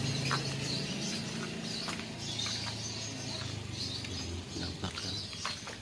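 Birds chirping and twittering, over a low engine hum that fades and then comes back, with a few faint clicks.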